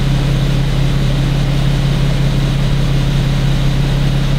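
Stock exhaust of a 2015 Infiniti Q70 with the 3.7-litre V6, idling: a steady, pretty quiet low hum.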